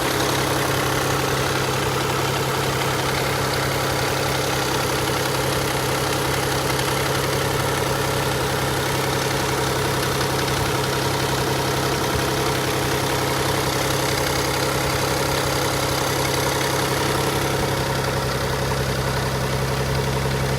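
Nissan Fairlady Z Z32 (300ZX) twin-turbo VG30DETT V6 idling steadily with a fast, even clattering rattle from its hydraulic lash adjusters (valve lifters), the typical lash adjuster noise.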